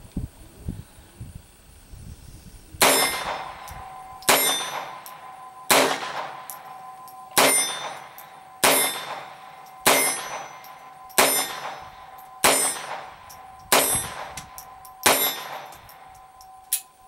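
Ten shots from a Star Model F .22 LR semi-automatic pistol, about one every second and a third, fired until the magazine is empty, with steel targets ringing on the hits. A light click near the end.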